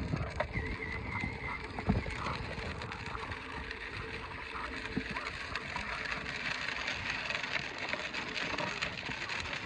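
A child's battery-powered ride-on toy motorcycle rolling over loose gravel: its plastic wheels make a steady crunching noise full of small crackles.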